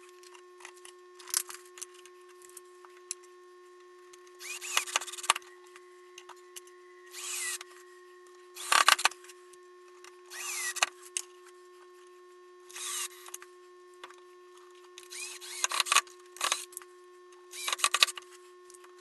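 Cordless drill run in about eight short bursts, each under a second, some rising in pitch as the motor speeds up, while small metal hinges are fixed to a plywood box lid.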